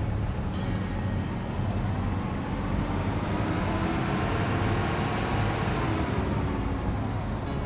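Caterpillar asphalt paver's diesel engine running steadily. It grows louder toward the middle and fades again as the machine passes close.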